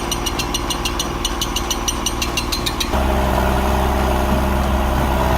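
A heavy vehicle's engine running steadily, with a fast, even ticking over it for the first three seconds. About three seconds in, the sound switches abruptly to a louder, deeper engine running.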